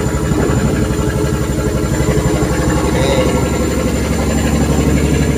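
Fishing boat's engine running steadily while the boat is under way, a low, even, fast throb.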